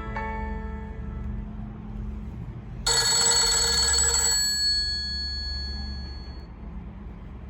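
Nokia 6500 slide phone playing a ringtone that sounds like an old telephone bell. It rings once, suddenly, about three seconds in, for about a second and a half, then rings out. Before it, the last notes of the previous melody tone fade away, and a steady low hum runs underneath.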